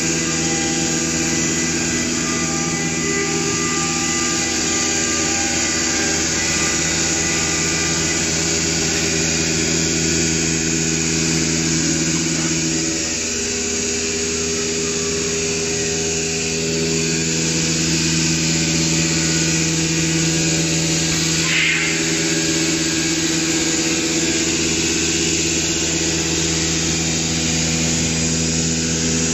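Spindle motors of an eight-spindle CNC router running, a steady high hum of several tones over a broad machine noise. Partway through, the hum drops in pitch for a few seconds and then settles again.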